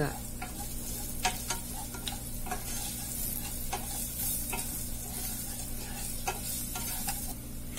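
Wooden spatula stirring garlic, curry leaves and ground spices frying in hot oil in a nonstick saucepan: a steady light sizzle with scattered scrapes and taps of the spatula against the pan.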